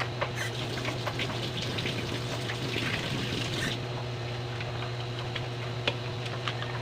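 Vinegar pouring for about three seconds, then stopping suddenly, with scattered small clicks and a steady low hum underneath.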